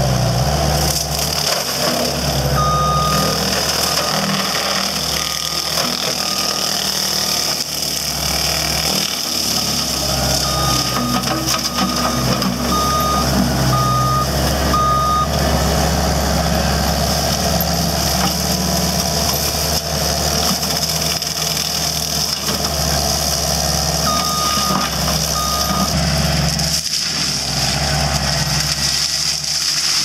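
Cat 299C compact track loader with a Brown Brontosaurus forestry mower head, its diesel engine and hydraulic mower running steadily under load with a high whine over it while it grinds down brush. Its backup alarm beeps in three runs of short, evenly spaced beeps as the machine reverses.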